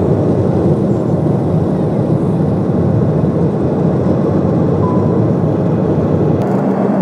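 Jet airliner's engine and air noise heard inside the cabin, a loud steady rush while the plane is airborne at low altitude. A steady low hum joins about six and a half seconds in.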